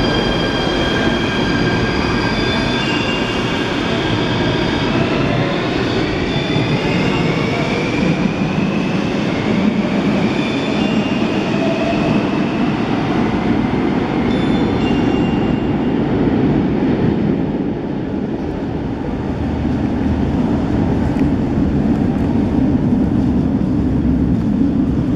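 Athens Metro train pulling out of the underground platform: electric motors whining in several high tones that rise in pitch as it speeds up, over a loud running rumble. About two-thirds of the way through, the rumble dies away into the echoing background noise of the station platform.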